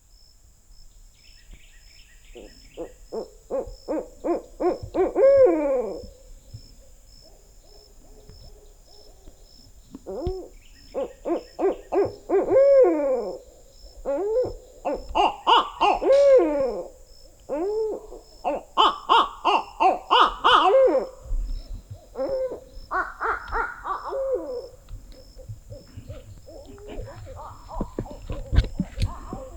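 Barred owls hooting back and forth in about six bouts, sometimes overlapping. Each bout is a quickening series of rhythmic hoots that ends in a drawn-out, falling 'hoo-aw'.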